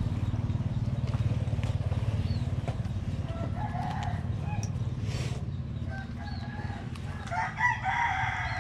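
A rooster crows twice: a fainter crow around the middle and a louder one near the end. Underneath runs a steady low rumble.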